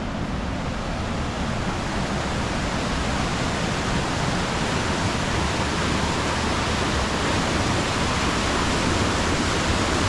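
A waterfall's steady rush of falling water, growing slightly louder.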